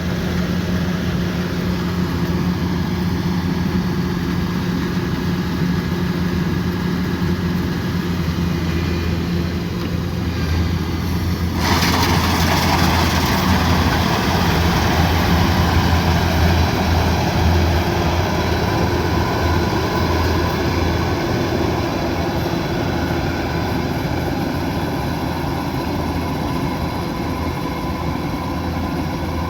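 Kubota DC108X combine harvester's diesel engine running steadily with a low hum. About twelve seconds in, a louder, higher rushing noise comes in suddenly and carries on over the engine.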